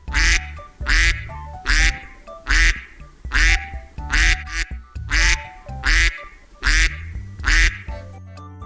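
A duck quacking about ten times in a steady series, a little under a second apart, stopping shortly before the end. Light background music plays under the quacks.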